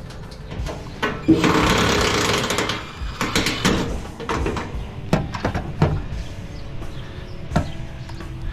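Metal parts of a PTAC unit being worked apart by hand: a loud scraping, rattling stretch about a second in, then scattered clanks and knocks.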